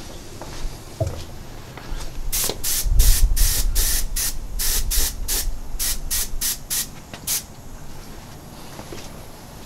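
Airbrush spraying in a quick series of short hisses as the trigger is pressed and released, about fifteen brief bursts over some five seconds starting about two seconds in.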